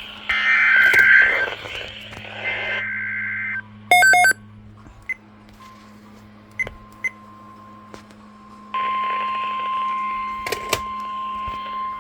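NOAA Weather Radio emergency alert signal: harsh, raspy digital SAME data bursts at the start, a short beep about four seconds in, then the steady single-pitched 1050 Hz warning alarm tone starting about nine seconds in, over radio hiss. This sequence announces a new alert message.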